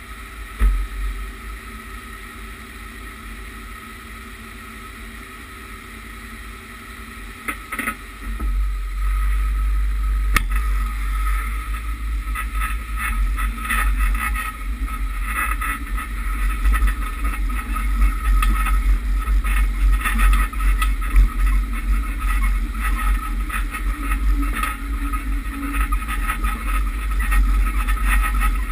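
Lifted Chevrolet Suburban idling with a brief knock near the start, then pulling away about eight seconds in and driving over rough grassland. Once it moves, a heavy low rumble of wind and tyres buffets the mounted microphone, with rattles and bumps over it.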